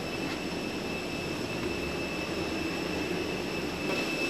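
Steady drone of airport apron machinery with a constant high-pitched whine running through it, and a single light click near the end.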